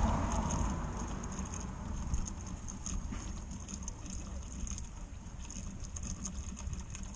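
Used engine oil pouring in a steady stream from the drain hole of a Jeep 3.0 CRD diesel's oil pan and running down a plastic chute.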